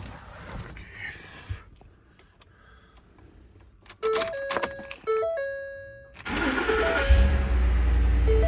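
Keys jangling, then the 2010 Ford F-150's warning chime sounding in stepped tones. About six seconds in the engine cranks and starts, running with a metallic rattle on startup. The rattle comes from the exhaust heat shield, whose clamps have rusted apart, a common fault.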